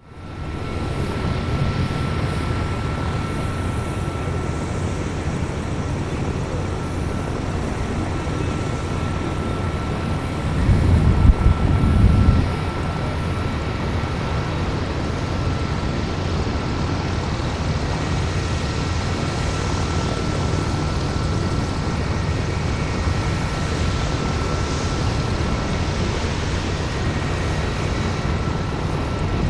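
Bell AH-1 Cobra attack helicopter running steadily: a low rumble from the rotor and turbine with a thin, steady whine above it. The rumble swells louder for about two seconds roughly ten seconds in.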